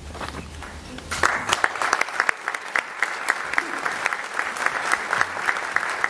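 Audience applauding, the clapping starting about a second in and going on steadily.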